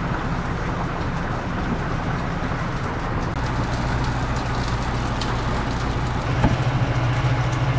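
Steady hum with a hiss over it. The low hum grows stronger about three seconds in, and a single short knock sounds near the end.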